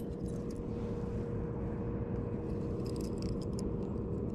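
Steady low background rumble with a constant hum running through it, and a few faint light clicks in the later half.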